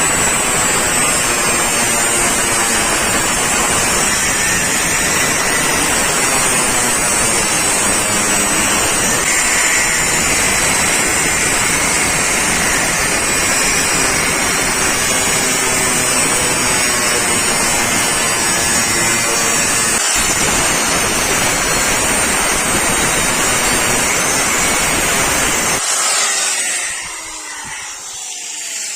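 Electric power grinder grinding the steel of a chainsaw bar: a loud, steady rasping hiss with a thin whine over it. Near the end the grinding eases off and the noise drops.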